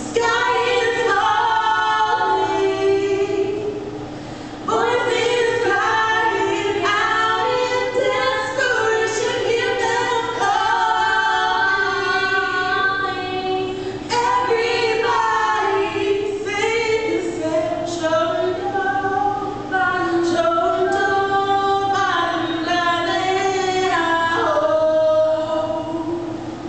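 Two women singing a cappella, with a short break about four seconds in.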